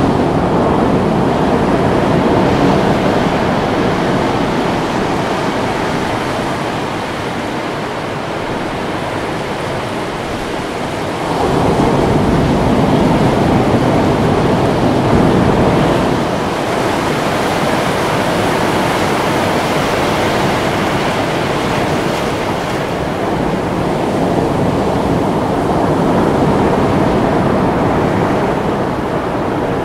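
Ocean surf: waves breaking and washing in, a steady rush that swells louder for several seconds about a third of the way in.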